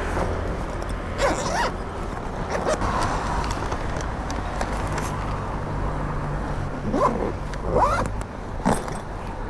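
Zip of an insulated food delivery backpack pulled open about a second in, then pulled shut in two quick strokes near the end, each pull a short rising rasp. A steady low hum of street traffic runs underneath.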